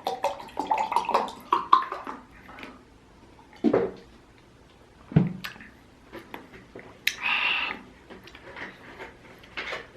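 Close-miked eating sounds: wet chewing and smacking mouth clicks, dense for the first couple of seconds and then sparser, with a louder wet slurp-like burst about seven seconds in.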